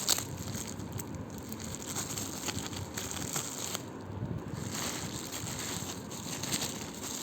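Crinkling and rustling of a mailed package being handled and pulled open by hand, with scattered small clicks and crackles.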